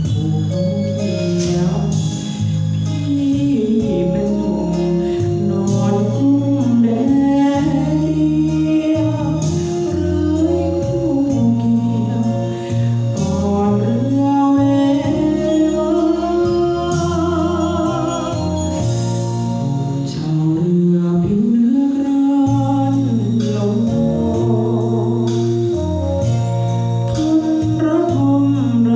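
A man singing a Thai song into a handheld microphone over backing music with a steady beat.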